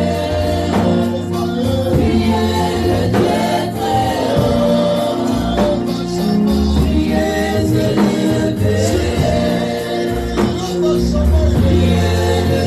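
Gospel worship song: a choir singing with instrumental backing, bass and percussion.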